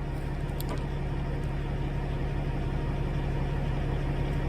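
Caterpillar bulldozer's diesel engine idling steadily, with a low, even rhythmic hum.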